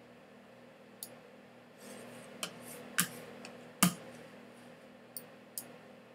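A few scattered sharp clicks over a faint steady hum, the two loudest about three and four seconds in.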